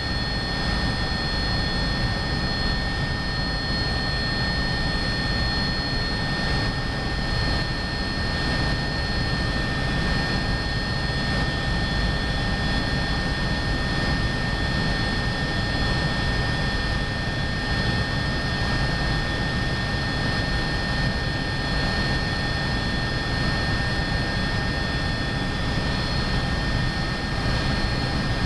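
Agusta A109BA twin-turbine helicopter in cruising flight, heard from inside the cabin: a steady high turbine whine over a dense, unbroken rotor and engine rumble.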